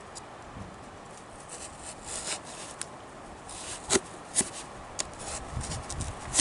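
Hands rustling and pulling at a parcel's packaging, with a few sharp snaps or clicks around the middle.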